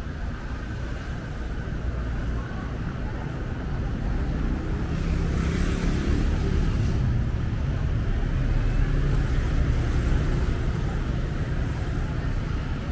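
Street traffic running past: a steady low rumble of engines and tyres. It grows louder for several seconds in the middle as vehicles pass close, with a brief hiss about five seconds in.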